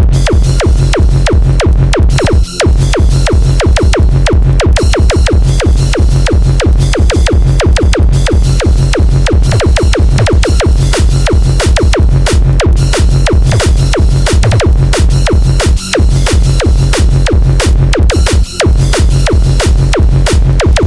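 Tribecore / hard tekno track at 180 bpm: a hard kick drum pounding about three times a second under heavy synth bass, with brief drops in the beat three times.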